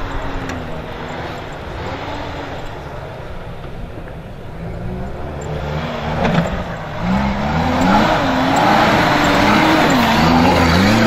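Off-road rally car's engine revving up and down as it climbs steep dirt mounds. It grows much louder from about seven seconds in, its pitch repeatedly rising and falling.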